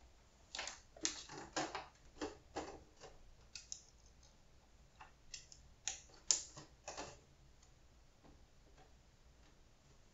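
Irregular small clicks and light knocks of hands plugging a cable into a MacBook laptop and handling the laptop, in two clusters over roughly the first seven seconds.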